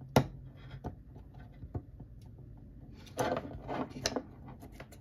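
Small metal parts of an airsoft MP5 gas blowback bolt and NPAS being handled on a wooden bench. A single sharp click just after the start, likely the retaining pin going in, is followed by a few light ticks, then a scratchy rattle of metal parts about three seconds in.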